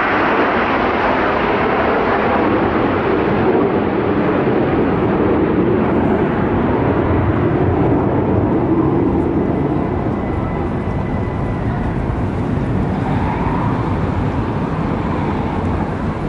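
Jet noise from a nine-ship formation of CT-114 Tutor turbojet trainers flying a display, a steady broad rush that eases a little about ten seconds in.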